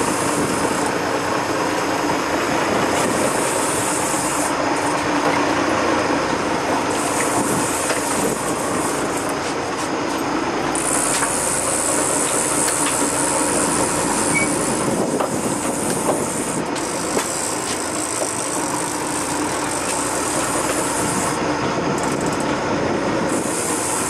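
Sport-fishing boat underway with lines out: a steady engine drone mixed with rushing water and wind noise.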